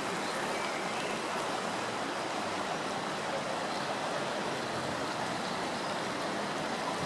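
The Ahr river flowing: a steady, even rush of running water.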